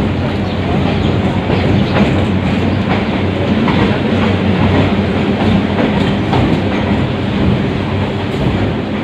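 Passenger train running, heard from inside the carriage through an open barred window: a steady rumble with irregular clacks of the wheels over rail joints and points.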